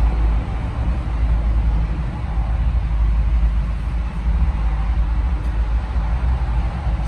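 Steady low rumble of a vehicle's engine idling, heard from inside the cab.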